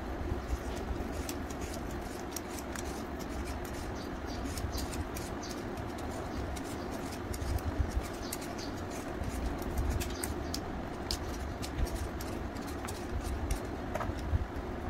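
Hand-held peeler scraping the skin off raw green mangoes in quick, repeated short strokes, over a steady low hum.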